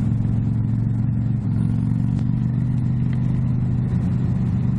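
Motorcycle engine running at a steady cruising speed while riding, with an even, unchanging engine note and wind noise over it.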